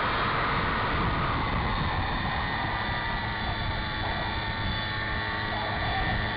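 Propeller plane's engine and propeller running steadily in flight, heard from a camera mounted on the plane, with rushing air over it. The pitch and loudness hardly change.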